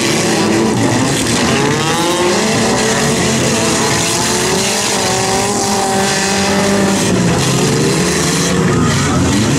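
Several race cars' engines revving at once, their pitches rising and falling as they accelerate and ease off, over a steady loud hiss.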